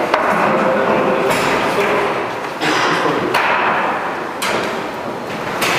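Several sharp knocks and thumps of a 24-inch round sheet-metal duct section being fitted into place, over a steady rushing noise.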